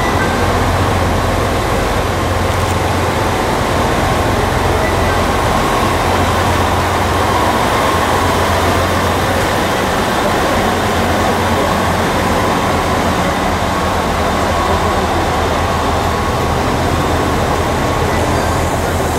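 Chizu Express HOT7000-series diesel multiple unit standing at a platform with its engines idling: a steady, unchanging low drone.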